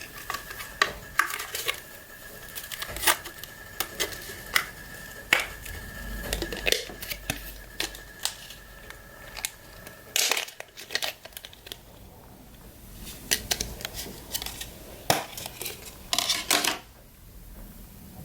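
Irregular light clicks and taps of hands handling a laptop DDR3 memory module and the open laptop's case, with louder clusters about ten seconds in and near the end.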